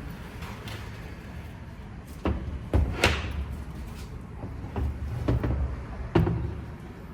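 A series of sharp clunks and heavy knocks with a low rumbling between them as the engine block is shifted over onto its side. The loudest knocks come about three seconds in and again about six seconds in.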